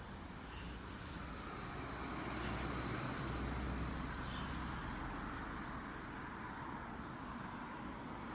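Road traffic noise: a steady rumble from vehicles, swelling as one passes about three seconds in and then fading.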